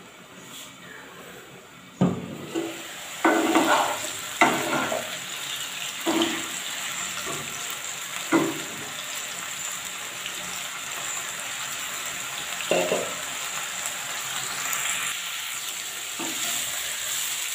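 Cauliflower florets sizzling as they fry lightly in oil in a nonstick pan. They are stirred with a wooden spatula that knocks against the pan every few seconds. The sizzle starts suddenly about two seconds in, when the pan is uncovered; before that only a faint hiss.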